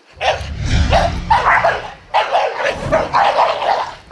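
American Pit Bull Terrier barking rapidly and repeatedly, with a short pause about halfway through.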